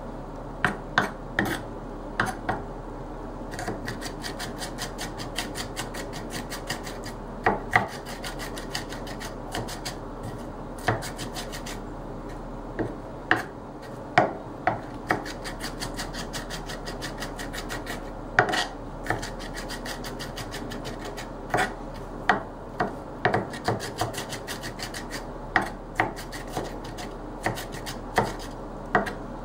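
Curved mincing knife rocked rapidly across a white plastic chopping bowl, mincing onion: a fast, steady run of fine clicks and scraping as the blade meets the board, with louder knocks every second or two.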